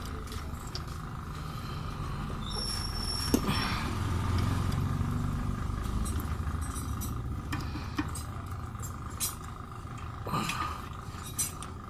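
Scattered metallic clicks and knocks as a CV drive shaft and its joint are handled and fitted under a car, the sharpest a bright knock about three seconds in. A low rumble swells and fades behind them.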